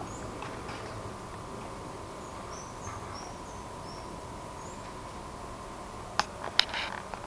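Quiet background with a faint steady hum and a few short, faint high chirps of small birds in the middle. Two sharp clicks a little after six seconds, phone handling noise.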